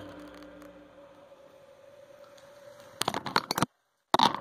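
A held musical note fades out over faint hiss. About three seconds in comes a quick run of sharp clicks and knocks, then a brief dead gap, then more knocks at the end.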